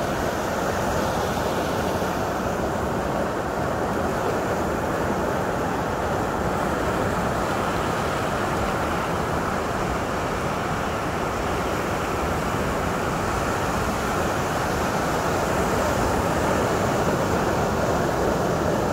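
Ocean waves breaking and washing over a rocky shoreline: a steady rush of surf.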